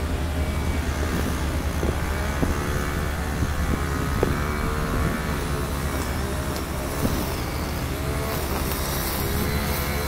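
Heavy diesel engines of a crawler crane and a semi truck running steadily under a lifted barge section: a constant low hum with a mid-pitched whine that wavers in pitch late on, and a few light knocks.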